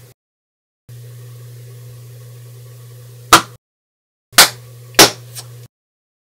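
Three sharp, loud smacks, the first about three seconds in and two more close together a second or so later, with a fainter tick just after the last, over a steady low hum that cuts in and out with stretches of dead silence.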